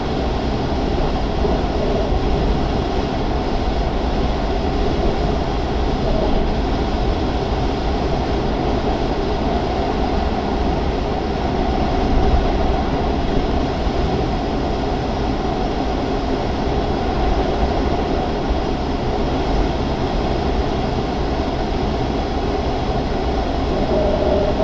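Steady rush of air over the canopy of a Grob 103 glider's cockpit in flight, a continuous even noise with most of its weight low down.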